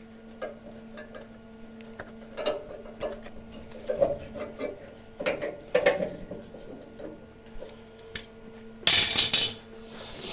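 Light metallic clinks and taps of steel parts and tools being handled over a low steady hum, then, about nine seconds in, a crackling burst of welding lasting about half a second: a small tack weld on a steel bracket.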